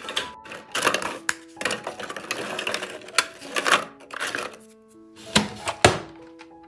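Graham crackers snapped by hand and dropped into a plastic food processor bowl: a run of dry cracks and clatters, with a heavier thunk about six seconds in. Background music plays under it.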